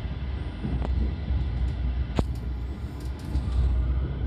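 Interior of an SNCB I10 passenger coach running at speed: a steady low rumble of the wheels on the track, with two sharp clicks, the louder one about two seconds in.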